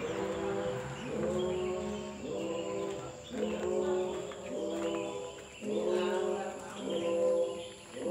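Music: a melody of held, pitched notes, each sliding up into its pitch, about one note a second over a steady low tone.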